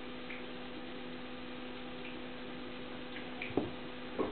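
Steady electrical hum with a few faint clicks, and two short knocks near the end.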